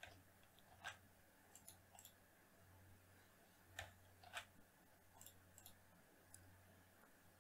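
Faint, scattered clicks of a computer mouse and keyboard, a few sharper single clicks among lighter ticks, over a faint low hum.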